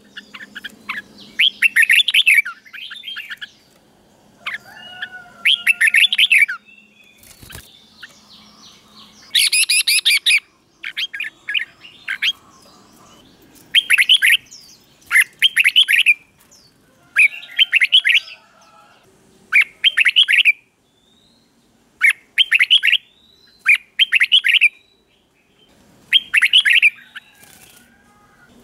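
Red-whiskered bulbul singing: short, bright, warbling phrases repeated every one to two seconds with brief pauses between them.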